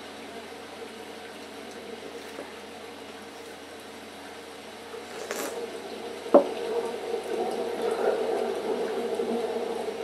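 A man drinking from a coffee mug: a sharp knock about six seconds in, then uneven sipping and swallowing, over a steady room hum.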